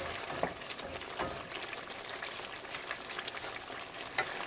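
A pot of potato curry simmering, a steady hiss with scattered small pops, while cooked potatoes are mashed into the gravy with a metal potato masher, soft squelches in the first second or so, then stirred.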